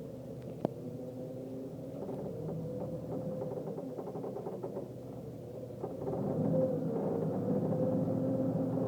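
Truck engine running steadily, getting louder about six seconds in as it picks up speed, with a single click under a second in.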